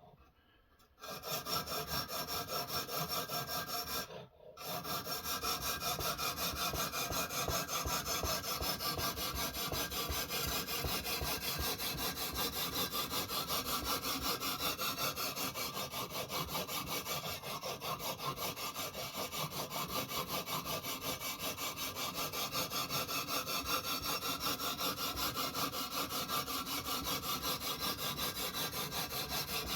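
Ruixin Pro diamond sharpening stone on a guided sharpening system rubbed in rapid, rhythmic back-and-forth strokes along a steel knife edge, grinding the initial edge bevel on a thick blade. The strokes start about a second in, stop briefly around four seconds, then run on steadily.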